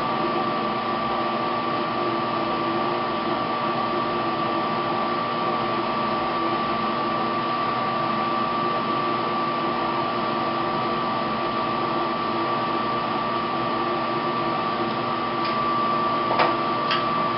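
Laminar flow cabinet's blower running steadily: an even hum and hiss with a constant high whine. A few light clicks near the end.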